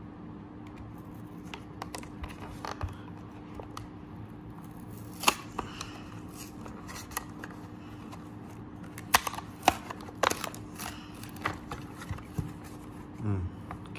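Plastic blister pack being pried and peeled off its cardboard backing card by hand: scattered crinkles, scrapes and sharp clicks of the stiff plastic. The sharpest are a little past five seconds in and around nine to ten seconds in, over a faint steady hum.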